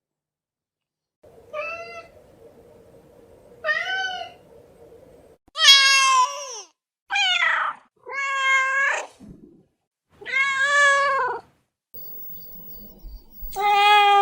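Domestic cats meowing: about seven separate meows a second or two apart, some short and some long and drawn out, at varied pitches.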